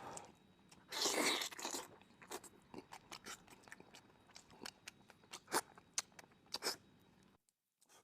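Close-up eating sounds: a loud crunching bite about a second in, then chewing with sharp crisp crunches and mouth clicks, stopping abruptly about seven seconds in.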